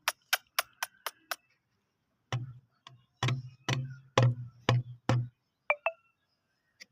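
A series of sharp taps: about six quick light clicks, then after a pause about seven heavier knocks with a hollow thud.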